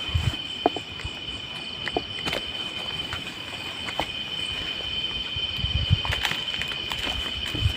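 Night insect chorus, a steady high-pitched cricket trill that holds one even tone, with scattered clicks and a few low thumps near the start and about two thirds through.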